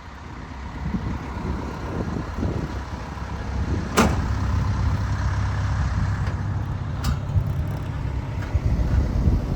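Kobelco SK210LC-9 excavator's Hino diesel engine running at a steady idle with a low rumble. Two sharp knocks stand out over it, the louder about four seconds in and another about three seconds later.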